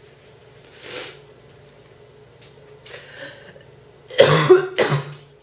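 A woman's heavy, deep cough: a soft breath about a second in, then a loud fit of coughs near the end, from a bad cold.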